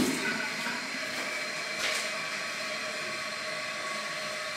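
Toilet cistern refilling after a flush: a steady hiss of water running in, with a faint steady tone from the fill valve.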